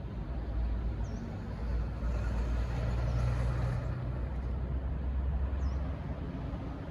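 V/Line N class diesel-electric locomotive running with a steady low engine drone that grows a little louder in the middle.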